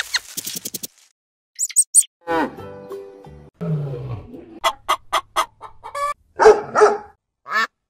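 A quick succession of different animal calls: rapid clicks, short high chirps, a pitched call and a low falling call, then from about halfway a run of short hen clucks with a louder squawk near the end.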